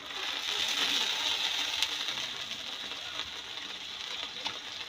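Hot oil sizzling in a wok as wet chayote shoots drop in. The hiss surges right away, is loudest in the first second or so, then settles to a steadier sizzle with a few crackles.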